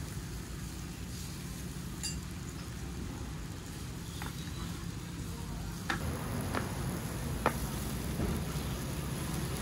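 Coconut batter sizzling in the hot cups of a clay kanom krok pan over a low steady hum, with a few sharp clicks of the clay lids being set down on the pan in the second half.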